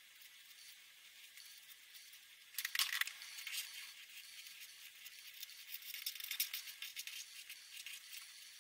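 Felt-tip pen nib scratching and tapping on paper. It is faint at first, then from about two and a half seconds in comes a flurry of quick, scratchy strokes and small taps as the outline is drawn.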